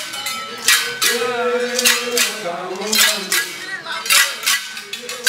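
A group of men singing together in held, wavering notes, with sharp percussive strikes coming irregularly about once or twice a second.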